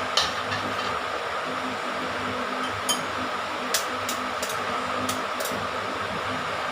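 Eggs being beaten in a bowl: a steady whirring, with scattered sharp clicks of the beater against the bowl.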